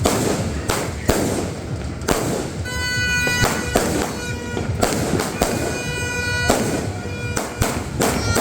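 Consumer fireworks cake firing a rapid series of shots, sharp bangs about one or two a second. Twice a steady pitched tone, like a drone, sounds alongside for about two seconds.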